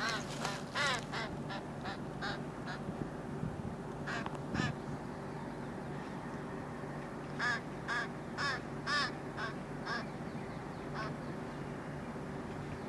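A bird giving short, repeated calls in runs of several at a time, about three a second, with pauses between the runs, over a steady low hum.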